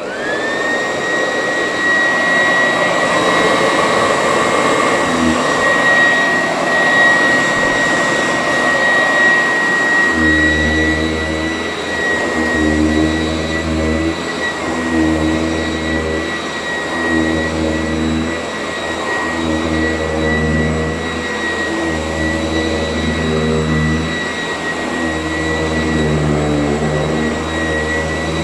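Sanitaire S675 upright vacuum cleaner, original motor, switched on and spinning up with a rising whine that settles into a steady high-pitched running tone. From about ten seconds in, a lower hum swells and fades in a regular rhythm, roughly every two seconds.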